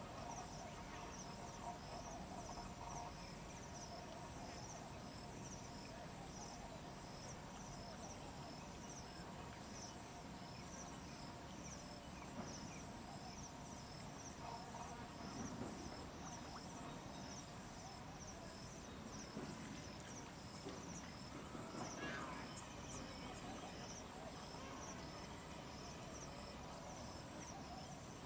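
An insect chirping steadily in an even rhythm of short, high-pitched pulses, over a faint outdoor background.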